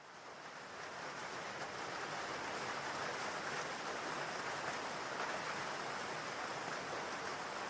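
Steady rainfall, an even hiss of rain fading in over the first couple of seconds and then holding level.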